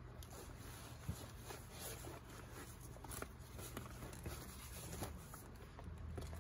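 Soft rustling of backpack fabric and scattered light knocks and clicks as a pouch and other small items are packed into a backpack, over a low steady hum.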